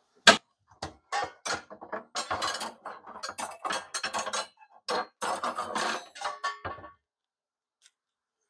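Kitchen dishes and cookware clattering and clinking as they are handled and put away: a sharp knock near the start, then a run of clatters lasting about six seconds that stops near the end.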